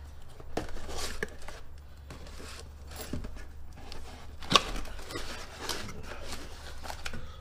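A small box of parts being opened and handled by hand on a workbench: scattered rustling, scraping and light knocks of packaging, with one sharper knock about four and a half seconds in, over a low steady hum.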